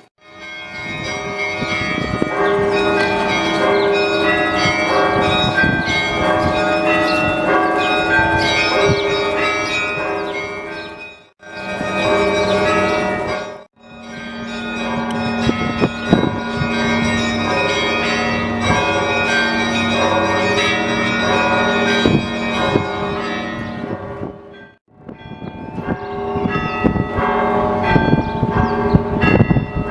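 Russian Orthodox bell ringing from the Spaso-Preobrazhensky Cathedral belfry: many bells of different pitches struck in a dense, rapid pattern, their tones overlapping and ringing on. The ringing breaks off abruptly for a moment three times, about 11, 14 and 25 seconds in.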